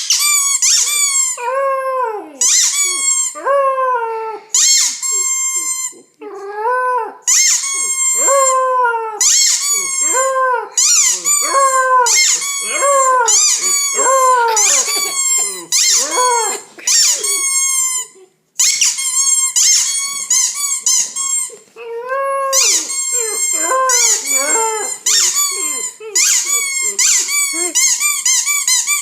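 A squeaky toy squeezed over and over while a nine-week-old white German Shepherd puppy howls along, her high howls sliding down in pitch.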